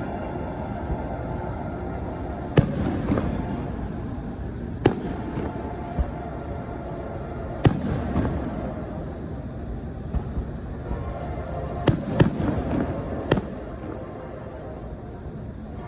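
A steady low rumble broken by about seven sharp, irregularly spaced bangs, two of them close together near the end.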